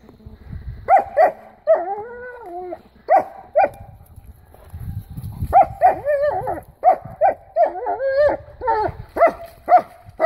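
A dog barking excitedly in short, high barks, mixed with longer wavering whining yelps. The barks come in pairs early on and turn into a rapid run of barks and yelps from about halfway through.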